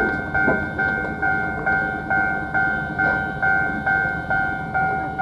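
Railway level crossing warning alarm on Japan's Keio Inokashira Line, ringing a repeated tone about twice a second, each strike decaying before the next. It is an early-1980s cassette tape recording of limited quality.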